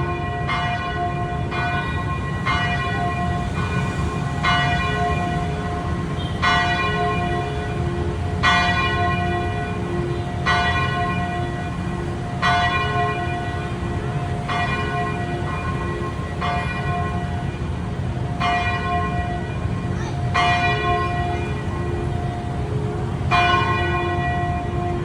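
Church bells ringing: several bells of different pitch struck in a repeating pattern, a heavier stroke about every two seconds with lighter strokes between, each note ringing on into the next, over a steady low background rumble.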